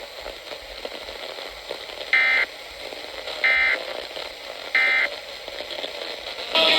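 Emergency Alert System end-of-message code over weather radio: three short, buzzy digital data bursts about a second apart over faint radio hiss, marking the end of the severe thunderstorm warning. Near the end, guitar music cuts in.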